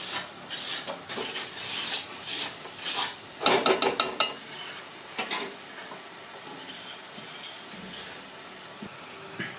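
A steel ladle stirring and scraping mutton curry in an aluminium pot, in strokes about twice a second, then a quick run of sharp metal clinks. After that the curry sizzles steadily in the pot.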